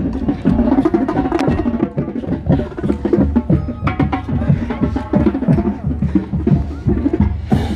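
Drum and bugle corps playing live at close range: marching drums hit a fast, busy rhythm over sustained brass.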